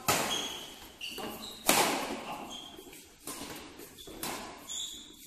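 Badminton rackets striking the shuttlecock in a doubles rally, sharp smacks about once a second that echo in the hall, the hardest right at the start and about a second and a half in. Short high squeaks of shoes on the court come between the hits.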